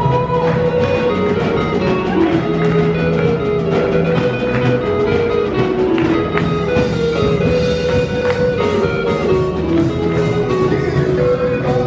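Background music led by a plucked guitar over a steady bass line.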